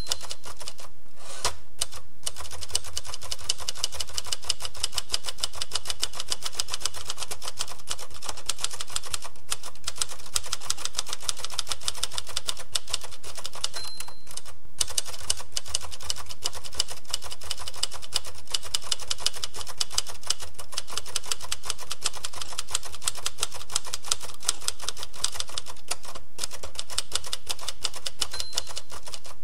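Typewriter keys being struck in quick, steady typing, with a few short pauses. A brief high ding sounds three times.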